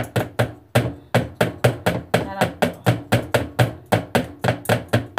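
Hand wire whisk beating cake batter in a mixing bowl, knocking against the bowl in a fast, even rhythm of about five strokes a second.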